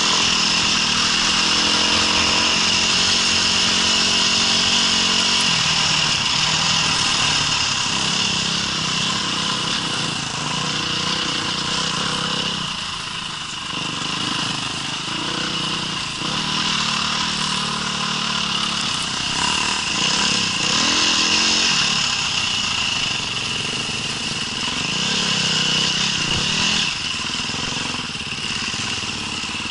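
Small engine of an off-road trail vehicle running continuously, its revs rising and falling again and again. The revs ease off briefly about 13 seconds in.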